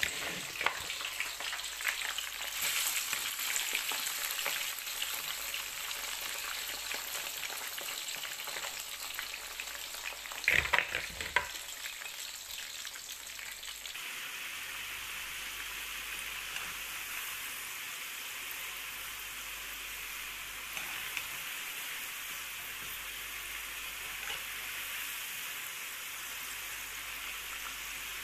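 Raw potato fries sizzling in hot oil in a frying pan, a steady dense hiss, with a brief burst of louder clatter about ten seconds in.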